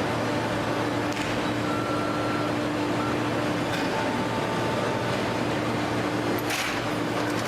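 Industrial baler machinery running: a steady motor hum with faint whining tones and a short hissing burst near the end.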